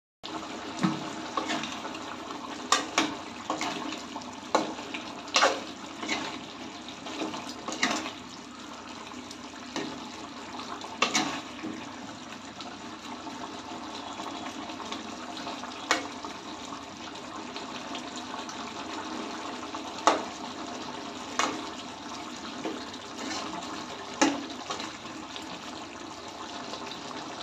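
Tomato and potato gravy boiling in a metal pot: a steady bubbling, broken by irregular sharp pops and clicks that are most frequent in the first half.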